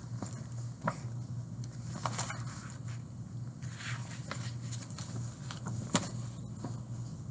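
Handling noise from a picture book and desk: scattered paper rustles and small clicks, with a sharp click about six seconds in, over a steady low background hum.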